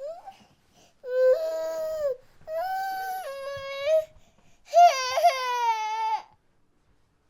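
Young child crying in three drawn-out wails with short breaths between them, after a brief whimper at the start.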